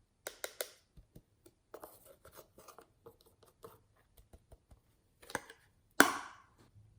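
Hands squishing and stretching clear slime: irregular sticky clicks and crackling pops, with one loud pop about six seconds in.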